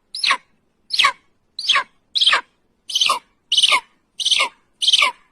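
A bird calling over and over: short calls, each sliding steeply down in pitch, repeated evenly a little over half a second apart.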